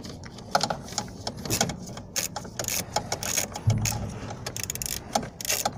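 Ratcheting screwdriver clicking in quick, uneven runs as a bolt holding the fuse block under the dashboard is unscrewed.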